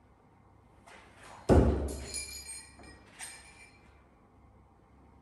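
A Fulmina throwing knife striking and sticking in a wooden log target about a second and a half in: a sharp thud followed by a brief metallic ring from the blade. A lighter metallic clink with a short ring comes about a second later.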